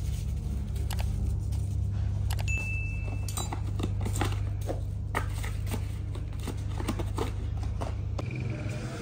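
Metal forks clinking and paper rustling as they are handled, wrapped and packed, with many short scattered clicks over a steady low machine hum.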